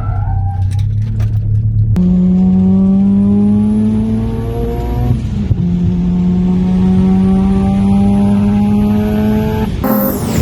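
Mazda RX-7's big single-turbo 13B rotary engine accelerating hard under load: two long pulls with the revs climbing steadily, a gear change about five seconds in between them, and a faint high whistle rising with each pull. A sudden loud burst near the end.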